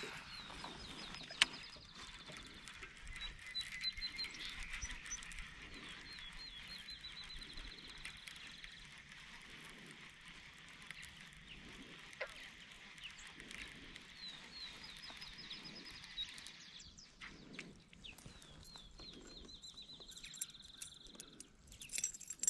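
Wild birds trilling, long runs of rapid high repeated notes in two spells, over faint outdoor ambience. A single sharp click comes about a second and a half in.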